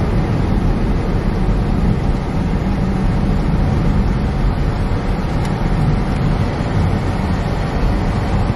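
Steady road and engine noise heard inside a Dodge Charger's cabin as it cruises at highway speed: a deep, even rumble with tyre and wind hiss over it, unchanging throughout.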